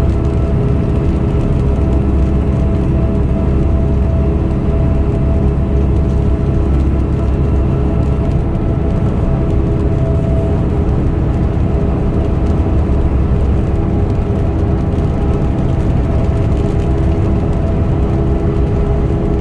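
Dump truck's diesel engine and road noise heard from inside the cab while cruising at highway speed: a steady low rumble with a constant drone over it.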